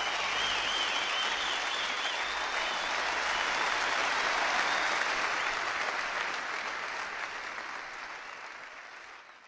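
Concert audience applauding at the end of a song, with high wavering whistles over it in the first few seconds; the applause fades out near the end.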